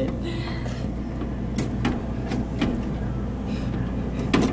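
Vending machine with a steady low hum and a few light clicks and knocks about one and a half to two and a half seconds in, as it is handled to get a stuck drink out.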